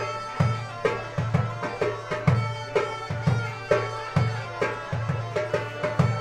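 Belarusian bagpipe (duda) playing a lively folk dance tune over its steady drone, with a hand drum beating the dance rhythm about two to three times a second.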